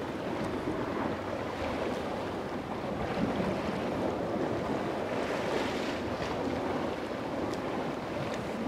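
Sea water washing against a rocky cliff base: a steady rush that swells a little twice, with wind on the microphone.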